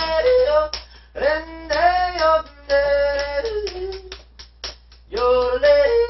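A man yodeling in short sung phrases, his voice jumping abruptly in pitch as it flips between chest voice and head voice, ending on a held note.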